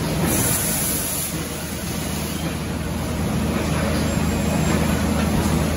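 Steady hum and hiss of factory machinery running.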